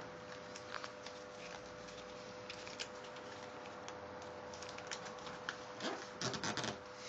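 A sheet of paper being folded and creased by hand, with short crinkles and rustles throughout and a quick run of louder crinkles about six seconds in.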